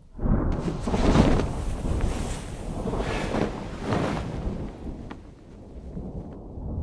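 Cinematic logo-reveal sound effects: rushing whooshes about once a second over a low rumble for the first four seconds, then settling to a quieter low rumble.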